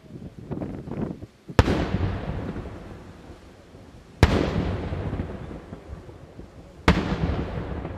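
Daytime aerial fireworks shells bursting: a few small crackles, then three sharp, loud bangs about two and a half seconds apart. Each bang is followed by a long rolling echo that fades away.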